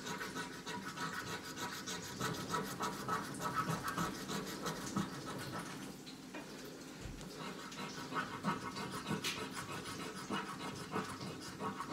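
Lottery scratch-off ticket being scratched with a small metal object, the coating scraped off in quick, repeated rasping strokes.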